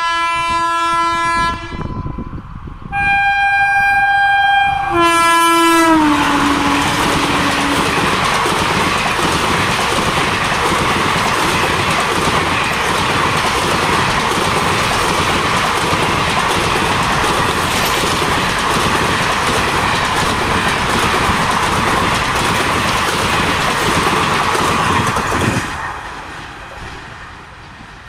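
WAP4 electric locomotive sounding its horn in three blasts, the last one dropping in pitch as it passes, then an express train rushing by at about 120 km/h in a long steady roar of wheels and coaches that fades out near the end.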